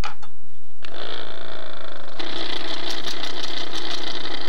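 A small electric motor runs with a steady whir, starting about a second in and getting louder about halfway through: a powered sifter sieving icing sugar.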